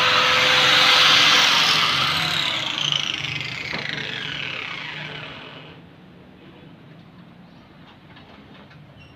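Handheld electric angle grinder grinding the metal frame, then switched off about two seconds in and spinning down with a falling whine that dies away around six seconds in.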